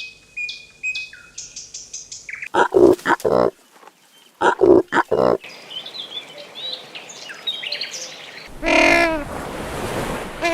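A run of different animal calls one after another: short high chirps, then two loud harsh calls, then scattered bird-like chirping, and a long wavering call near the end.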